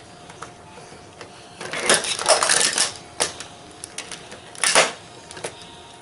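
Plastic magnetic building tiles clacking and clattering against each other and the tabletop as they are handled and stacked: a jumble of clatter about two seconds in, another short clatter near the end, and a few single sharp clicks between.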